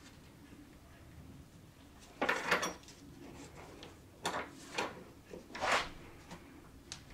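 A ring bender's lever being worked to wrap a spoon handle around its post: scraping and creaking of metal against metal. There is a longer scrape about two seconds in, the loudest, then several shorter ones.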